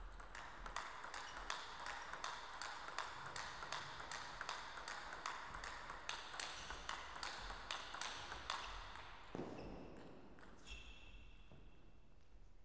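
Table tennis rally: a celluloid ball struck back and forth by rubber-faced paddles and bouncing on the table, a quick run of sharp clicks at about three a second for some eight seconds until the point ends. A dull thump follows about a second later.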